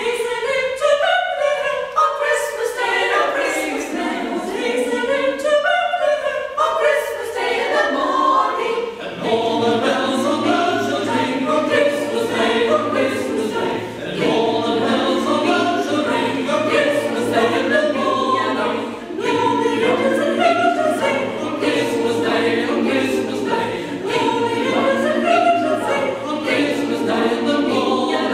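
Mixed choir of women and men singing a Christmas carol, with a lower part joining about nine seconds in.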